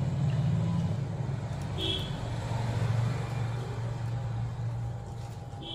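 A steady low mechanical hum, with a short high beep about two seconds in and another near the end.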